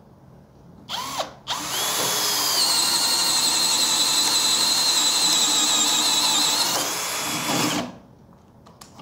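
Bosch GSB 18V-50 brushless cordless drill in its low-speed gear, boring through a wooden board with a large auger bit: a short blip of the trigger about a second in, then a steady motor whine for about six seconds that dips slightly near the end and stops. In low gear the drill has the torque to cut without the bit binding.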